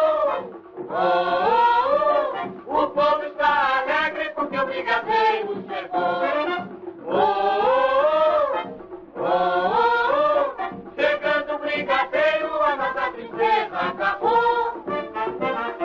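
Choir singing a Brazilian political campaign jingle from 1945–1950, in sung phrases of a few seconds each.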